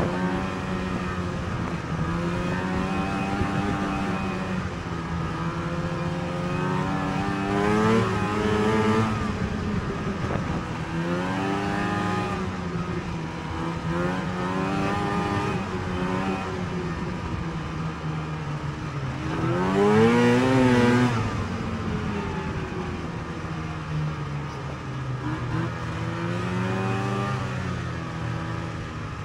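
Two-stroke snowmobile engine running along a trail, its pitch rising and falling again and again as the throttle is worked, with its hardest rev about two-thirds of the way through.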